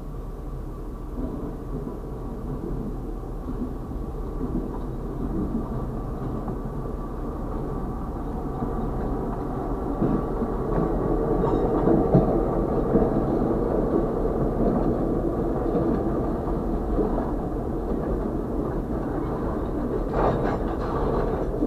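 A diesel switcher locomotive running past at slow speed, growing louder as it comes alongside about ten seconds in. Covered hopper cars then roll by with a steady rumble and a few knocks from the wheels. It is heard from inside a stopped vehicle.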